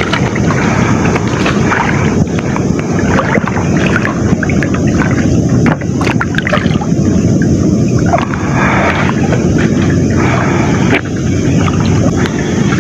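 Fast floodwater rushing and sloshing around a person wading chest-deep in it, a loud steady noise.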